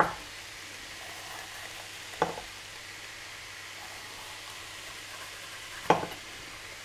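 Grated onion, garlic and courgette sizzling steadily in olive oil in a frying pan, with three sharp knocks of a chef's knife cutting through a yellow bell pepper onto a wooden cutting board: at the start, about two seconds in, and near the end.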